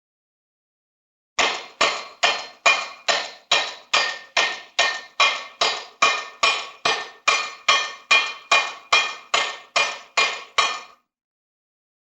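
Hammer-like strikes with a brief metallic ring, evenly repeated about two and a half times a second. They start about a second and a half in and stop near the end.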